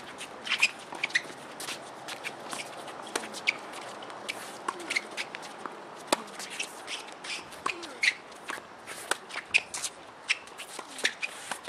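Doubles tennis rally on a hard court: sharp racquet-on-ball hits every second or two, among quicker shoe scuffs and footsteps on the court surface.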